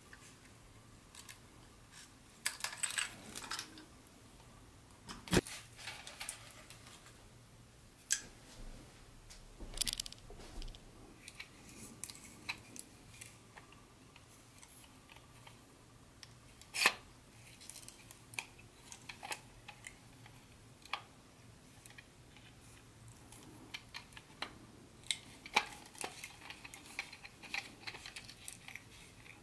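Hands handling the pieces of a boxed HO-scale model train set: scattered clicks, light clatter and rustling, with two sharp knocks, one about five seconds in and one about seventeen seconds in.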